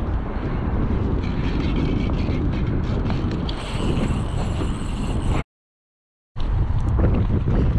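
Wind rumbling on a head-mounted camera's microphone while a spinning reel is cranked against a fish on the line. The sound cuts out completely for about a second past the middle, then comes back.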